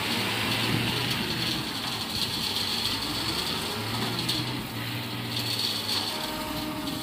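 Tata tipper truck's diesel engine running to drive the hydraulic hoist as the loaded tipping body is raised to dump iron ore, its pitch rising and falling a couple of times.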